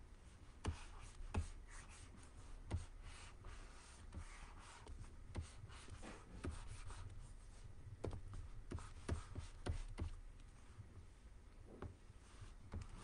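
Stylus scratching and tapping on a graphics tablet while sketching: faint, irregular pen strokes with small clicks.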